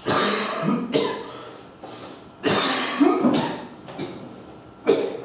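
A man coughing into his fist in a fit of about five coughs, each starting suddenly and trailing off.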